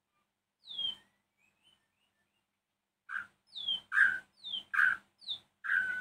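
White-rumped shama (murai batu) calling: one short note, then about halfway a quick run of about seven sharp notes, each sliding down in pitch.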